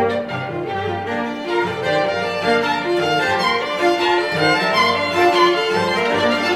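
String quartet of two violins, viola and cello playing a bowed passage, several voices moving in short notes at once.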